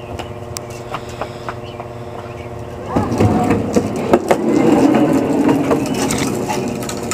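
Plastic wheels of a toy roller coaster car rolling down a plastic track and onto concrete. A sudden rumbling clatter with a few knocks starts about three seconds in and eases off near the end, over a steady hum.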